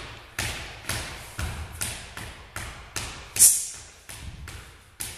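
A ball dribbled by hand on a wooden sports-hall floor: steady bounces about two a second, each ringing briefly in the echoing hall, with one harder bounce about three and a half seconds in.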